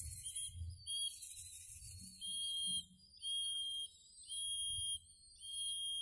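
A pigeon-training whistle blown in a series of steady, high single-pitched blasts, about one a second, short at first and longer from about two seconds in. It is the call signal the pigeons are being taught to answer.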